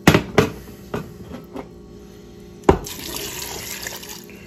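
Water poured from a glass measuring cup into the metal inner pot of a pressure cooker filled with green peanuts in the shell, splashing over them. Several sharp knocks and clinks, the loudest at the very start and just under three seconds in, followed by a splashing pour.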